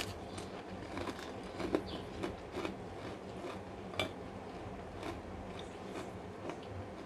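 Eating by hand: crunchy chewing of a cracker with scattered crisp clicks, and soft sounds of fingers picking rice and food from a bowl.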